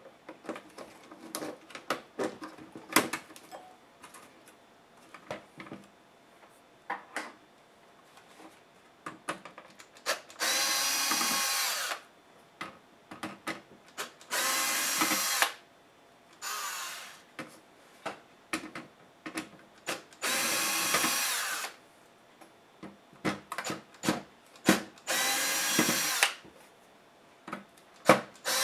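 Cordless electric screwdriver backing out laptop motherboard screws, its motor running in several short bursts of about a second each in the second half. Before that come light clicks and taps of small tools and plastic parts being handled.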